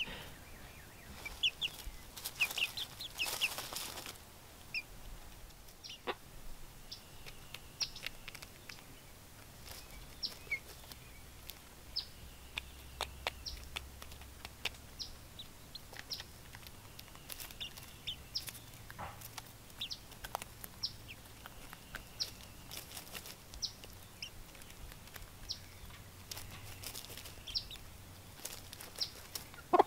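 Chickens peeping and clucking softly while foraging, many short high calls scattered throughout, with rustling in the litter about two to four seconds in.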